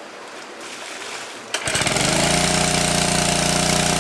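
Running water, then about a second and a half in a small engine of a portable water pump starts abruptly and runs steadily and loudly.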